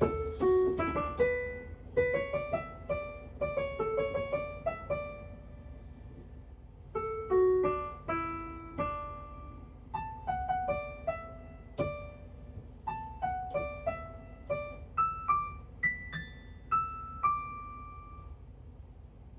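Electronic keyboard played in a piano voice: a simple melody of single notes, one at a time, with a pause of about a second and a half midway, the last note ringing out near the end.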